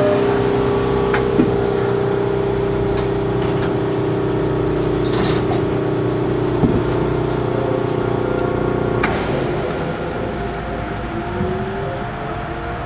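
Astram Line rubber-tyred automated guideway train running along the elevated guideway, heard from inside the car: a steady whine over a low tyre rumble, with a few short clicks. The sound drops a little about nine seconds in, and a rising tone comes in near the end.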